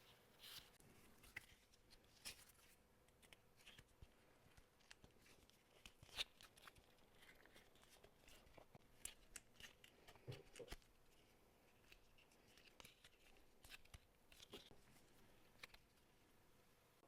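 Faint, scattered scrapes and light clicks of hand tools working the edges of small leather pieces, with one sharper click about six seconds in.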